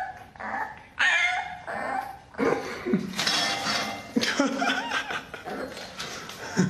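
French bulldog puppy yowling and whining: a string of high calls that bend up and down in pitch, one after another.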